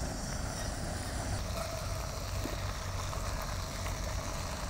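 Cubed potatoes and eggplant frying in oil in a wok: a steady, even sizzle, with a few faint scrapes and taps as a silicone spatula stirs them.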